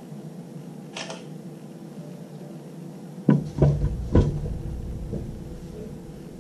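A light click, then three loud knocks with a deep thump in quick succession, over a steady low hum.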